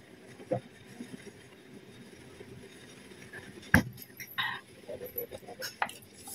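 Quiet table sounds of eating: a plastic drinking cup set down on the table with one sharp knock just past the middle, then light clicks and scrapes of a spoon scooping rice on a plate.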